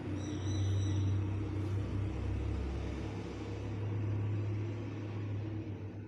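Low, steady rumble with a faint hiss over it; it drops away near the end.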